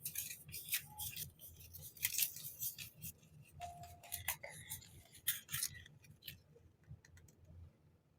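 Crinkling and rustling of packaging being handled, a dense run of quick crackles that thins out to a few scattered clicks after about five or six seconds.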